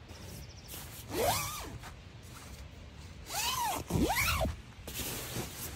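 Tent door zipper being pulled open in three or four separate strokes, each rasp rising and falling in pitch as the pull speeds up and slows.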